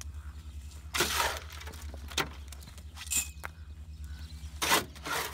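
Trowel scooping wet cement out of a wheelbarrow and dropping it into a fence-post hole: a series of gritty scrapes and dull thuds about a second apart, one with a short metallic ring.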